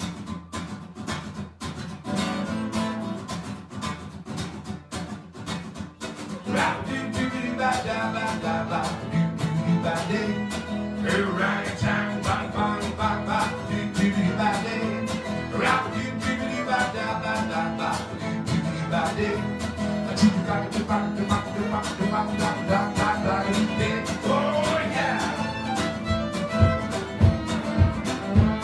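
A small acoustic band playing an instrumental intro: strummed acoustic guitar, with more instruments carrying a melody coming in about six seconds in.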